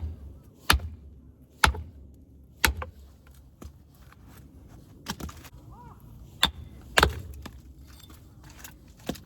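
Axe chopping firewood: a string of sharp strikes on wood, about one a second at first, then further apart, with lighter taps between.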